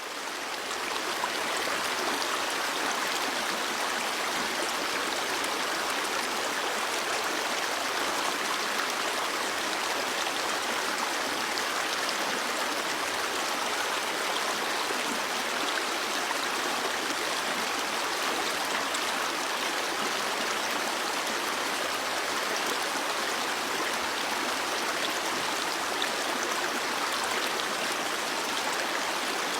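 Stream water flowing steadily over rocks. It rises in level over the first second or two, then runs on unchanged.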